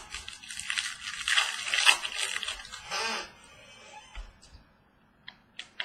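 Crinkling and rustling of trading-card packaging and cards being handled, dense for about the first three seconds, then softer, with two light clicks near the end.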